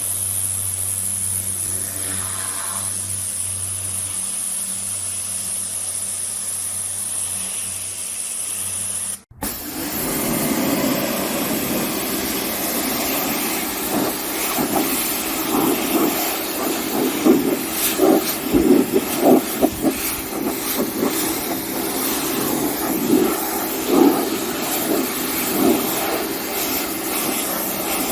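Pressure washer running: a steady motor hum under the hiss of the high-pressure spray. After a sudden cut about nine seconds in, a louder, rougher rush of spray with uneven surges as the jet strikes a surface.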